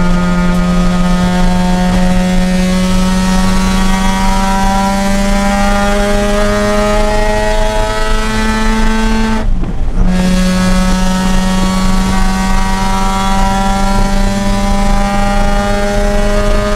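Mazda RX-8's two-rotor rotary engine under full throttle on track, its pitch rising steadily as it pulls through a gear. About nine and a half seconds in, it cuts off briefly for an upshift, then pulls and rises again.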